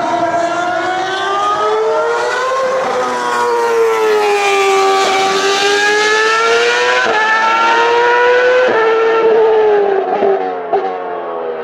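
High-revving Ferrari racing engine running hard on track. Its note sweeps down and back up over several seconds, then jumps abruptly twice with quick gear changes.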